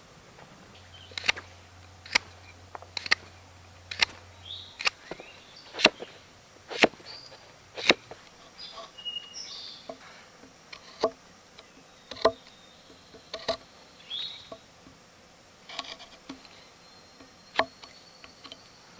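Large fixed-blade knife chopping notches into a small wooden stick laid on a log: sharp knocks about once a second at first, then more irregular, lighter cuts.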